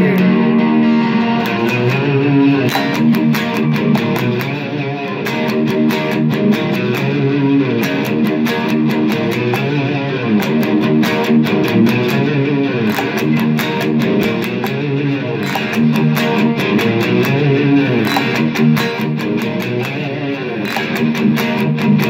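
Electric guitar playing a riff of picked notes and strummed chords, with many notes bent up and back down.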